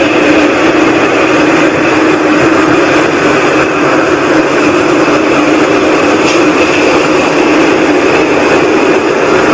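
Unexplained loud, steady noise in the night sky, a whooshing that sits between a rush and a rumble, with a held hum under it. The recordist says it is not aircraft noise.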